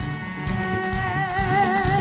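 Rock song playing: a long held high note that wavers in vibrato in the second half, over a steady beat.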